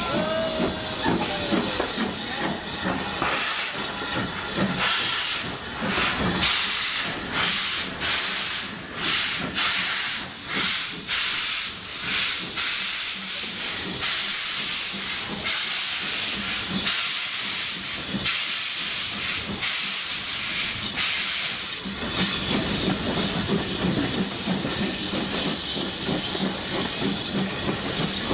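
Steam locomotive hauling a train, heard from a carriage window: a hiss of steam with a run of exhaust beats about a second apart, then a steadier rumble of the train running in the last few seconds.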